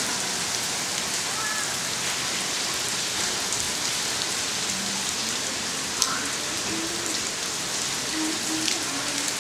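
Steady downpour of rain splashing onto a flat, flooded rooftop floor: a continuous even hiss of drops, with one sharp tick about six seconds in.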